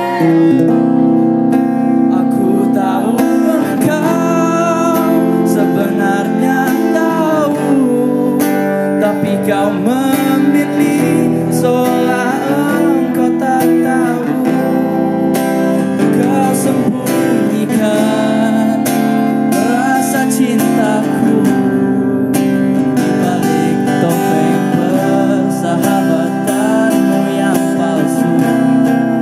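A girl singing a song to acoustic guitar accompaniment.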